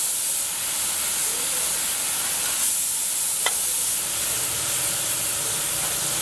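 Gravity-feed compressed-air paint spray gun hissing steadily as it sprays paint onto a sheet-metal fan blade.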